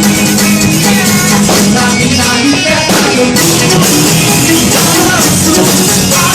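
Live worship band playing a song with drum kit and guitar, with singing over it.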